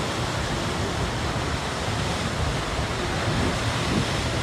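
Orkhon Waterfall's falling water, a steady, even rush.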